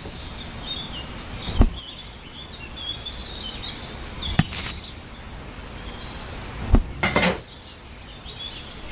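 Birds chirping in the background over steady outdoor noise, broken by a few sharp knocks: one about a second and a half in, one midway, and a quick cluster near the end.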